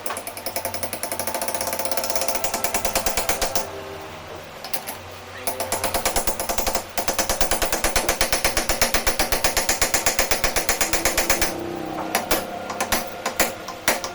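Rapid mechanical clattering, many sharp strokes a second, with brief breaks and a more uneven run near the end.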